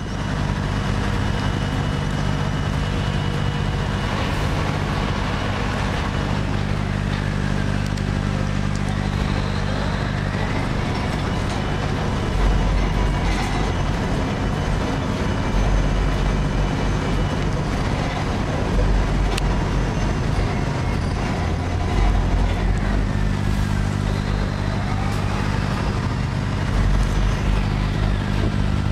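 A boat's engine running steadily at close range, with the wash of water and wind across it, and deep rumbling surges coming and going in the second half.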